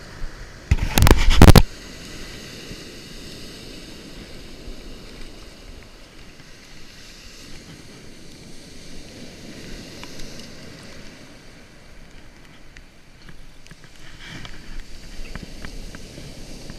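Surf washing in around the feet with wind, a steady rushing noise. About a second in, a loud, brief knock and rustle right at the microphone, and a few small clicks near the end.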